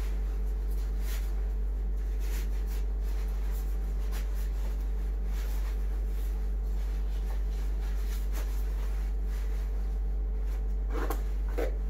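Impermeable PPE coverall fabric rustling in faint, brief swishes as it is pulled on and adjusted at the neck and front, over a steady low hum.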